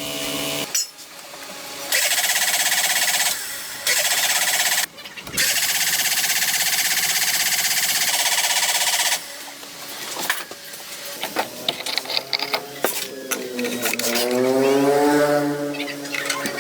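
A handheld power tool runs in three bursts of a few seconds each, with a loud, steady, hissing high-pitched noise. Near the end a pitched whine dips in pitch and rises again.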